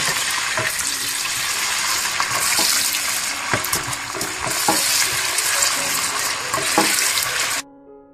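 Sliced onions sizzling in hot oil in a steel pot as they are browned, with scattered clicks from stirring. The sizzle cuts off suddenly near the end.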